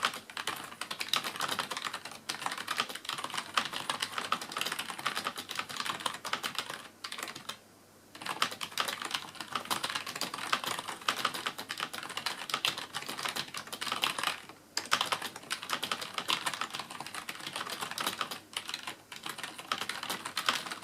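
CM Storm Devastator membrane gaming keyboard being typed on quickly and continuously, a dense run of key clicks with two short pauses, about seven and fourteen seconds in.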